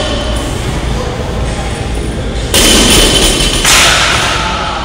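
A loaded barbell with bumper plates lands on the gym floor about two and a half seconds in: a sudden loud crash, then a second clatter about a second later that fades out. Gym music plays underneath.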